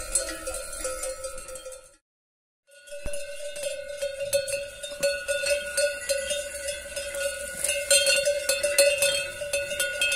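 Metal cowbell on a horse's collar clanking over and over as the horse feeds on cane. There is a short break of silence about two seconds in.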